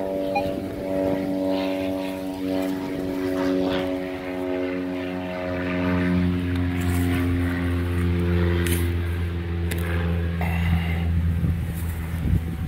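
Propeller airplane passing overhead: a steady engine drone that grows louder about halfway through, with a few light knocks of handling mixed in.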